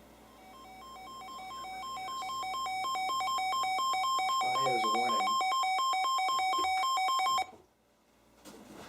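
Weather radios sounding their alert alarms as a National Weather Service flood warning comes in: rapid beeping at two pitches that grows louder over the first few seconds, holds, then cuts off abruptly about seven and a half seconds in.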